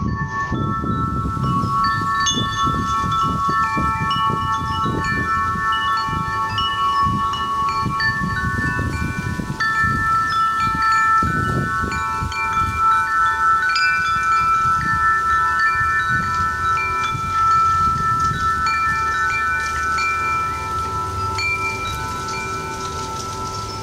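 Metal wind chimes ringing, many tones overlapping and held for seconds, with gusts of wind noise underneath.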